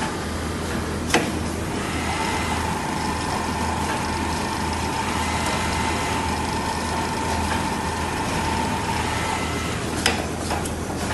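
Automatic industrial sewing machine running with a steady mechanical hum and a mid-pitched whine that holds for several seconds. Sharp clacks sound about a second in and again near the end.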